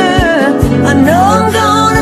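A song with a sung vocal line over sustained bass notes and a steady beat, the voice gliding up to a higher note about a second in.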